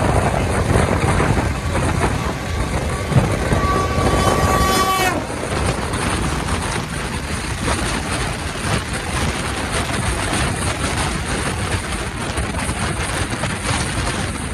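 The Sealdah Duronto Express running along the track: a steady rumble with a fast, fine clatter and a high hiss. A brief high tone sounds near four seconds in and stops suddenly about a second later.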